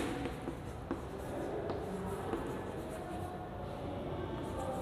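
Chalk writing on a chalkboard: quiet scratching strokes of the chalk as words are written.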